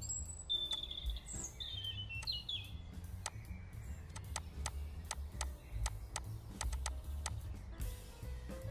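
Background music with high, bird-like chirps in the first three seconds, followed by a string of sharp clicks over a steady bass.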